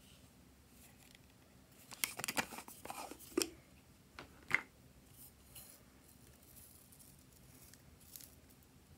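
Plastic lid of a strawberry-shaped container being worked off, a quick run of clicks and scrapes lasting about a second and a half, followed by two sharper single clicks.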